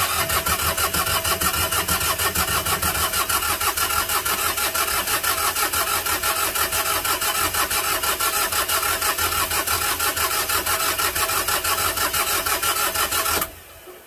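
Starter motor cranking an Onan 12.5 kW marine diesel generator in rapid, even pulses for about thirteen seconds without the engine firing. It stops abruptly near the end. The injector lines are cracked open to bleed air, and no fuel has reached the injectors yet.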